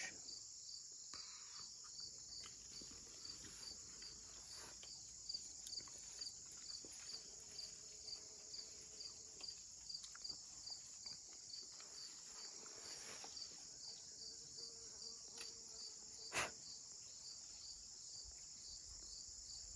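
Crickets and other insects chirping: a steady high-pitched drone with regular pulses about twice a second. A single sharp click comes about 16 seconds in.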